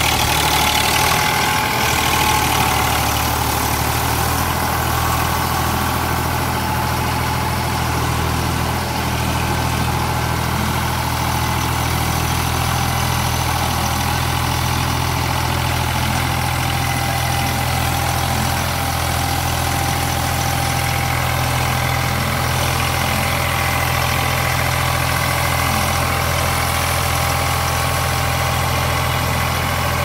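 Eicher 548 tractor's diesel engine running steadily at a constant speed, with no revving, while the tractor sits in deep paddy-field mud.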